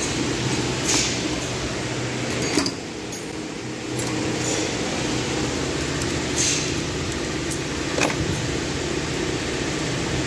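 Steady mechanical hum with four sharp metal clicks and taps from hand tools working on the engine while the ignition coil is being removed.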